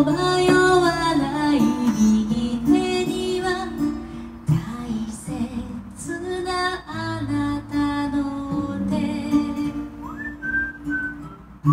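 A woman singing a Japanese pop ballad to live acoustic guitar accompaniment, with her voice carrying the melody in phrases broken by short pauses.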